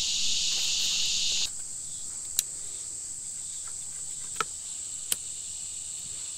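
Steady high-pitched shrilling of an insect chorus; about one and a half seconds in it drops to a thinner, higher drone. Three sharp clicks stand out as a knife works at the cord lashing the hoe head.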